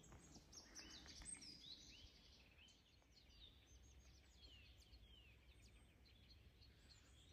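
Faint birdsong: scattered short, quick chirps and sliding calls from small birds over an otherwise near-silent background.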